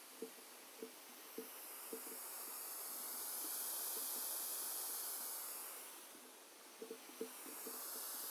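High-pitched hiss from a ConXeasy amplified speaker with nothing playing: the noise of its built-in amplifier. It swells to its loudest about halfway, dips, then comes back, with a few faint ticks near the start and again near the end.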